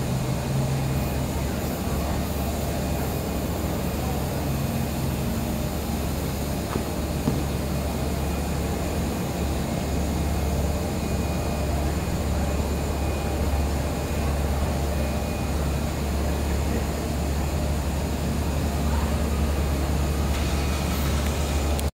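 Steady low rumble and hiss with a faint hum, from the running aerial cable car line and its station machinery.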